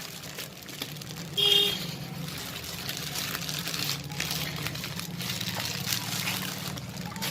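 Plastic courier packaging rustling and crinkling as a parcel is torn and pulled open by hand, with many small crackles. About one and a half seconds in there is a brief high-pitched squeal.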